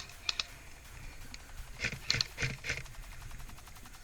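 Airsoft guns firing: a quick pair of shots near the start, then a short burst of about five shots around two seconds in.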